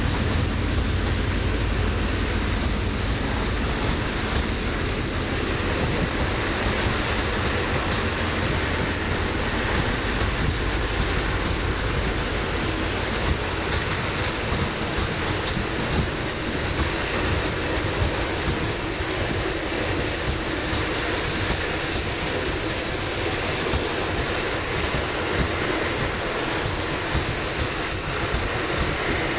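Freight train's open coal wagons rolling past: a steady rumble and rattle of wheels on rail, with brief high squeaks every second or two. The deepest rumble is strongest over the first few seconds.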